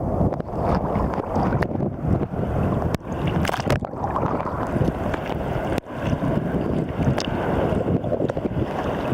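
Sea water sloshing and waves breaking, with wind rumbling on the microphone. The noise is steady, with a few short dips and faint clicks.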